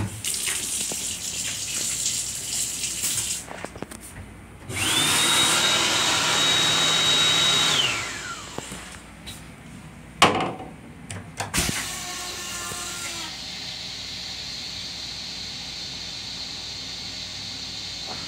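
Commuter-railcar restroom sink unit: water runs from the sensor faucet, then the built-in electric hand-dryer blower spins up with a rising whine, runs steadily for about three seconds and winds down. This is followed by two sharp knocks and a steady hiss.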